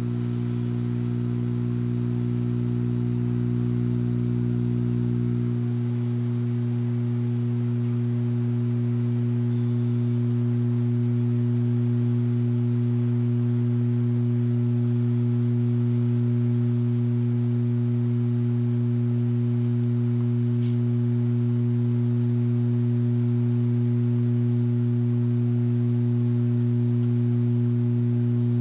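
Steady mains hum from a 175-watt mercury vapor light fixture and its ballast while the bulb warms up toward full power, growing slightly louder. About five and a half seconds in, part of the lower hum drops out and the rest carries on.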